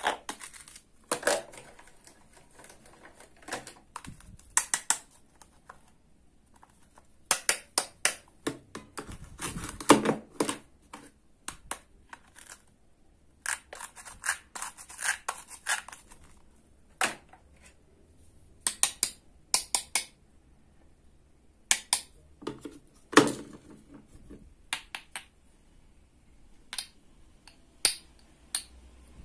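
Toy play-food being cut with a wooden toy knife: plastic fruit and vegetable halves joined by a hook-and-loop patch rip apart in short rasping bursts. Clicks and taps of the knife and plastic pieces come at irregular intervals, the loudest near the middle and again about two-thirds through.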